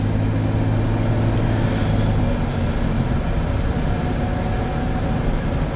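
Steady road and engine noise heard from inside a moving vehicle's cabin, with a constant low hum.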